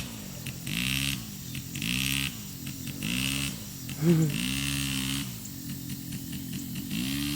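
Small ATV engine revved up and back down in short pulses about once a second, the throttle blipped on and off.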